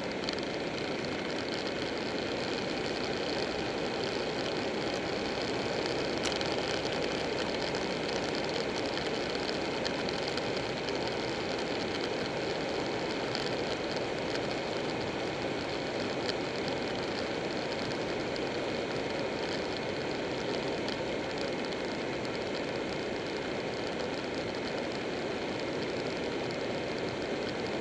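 Buell 1125R motorcycle cruising at a steady speed: a steady rush of wind and road noise on the bike-mounted microphone, with the 1125 cc V-twin engine running underneath.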